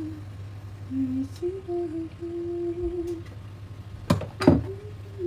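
A woman humming a tune, over a steady low hum. About four seconds in come two sharp knocks, the loudest sounds here.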